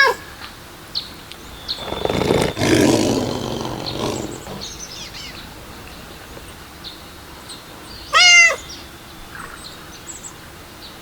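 A rough, noisy growl lasting about two and a half seconds, then a single cat meow about eight seconds in, with small birds chirping faintly throughout.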